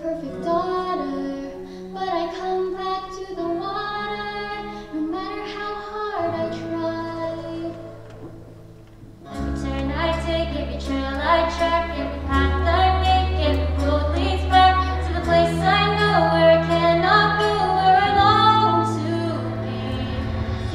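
A female voice singing a show tune with instrumental accompaniment. The accompaniment falls away and quietens about eight seconds in, then returns fuller with a strong bass line about a second later.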